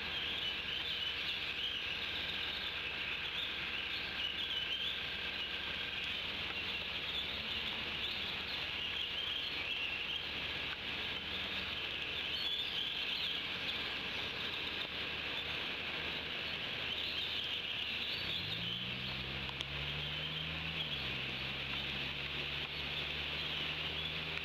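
Outdoor ambience in the rain: a steady hiss under a continuous chatter of distant songbirds chirping. About three-quarters of the way through a low engine hum comes in, rising briefly in pitch and then holding steady.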